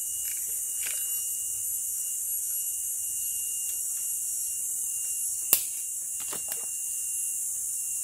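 Steady high-pitched drone of forest insects with a thin, unbroken whistle-like tone in it. A sharp click comes about five and a half seconds in, then two softer clicks just under a second later, from handling the hook and the catfish.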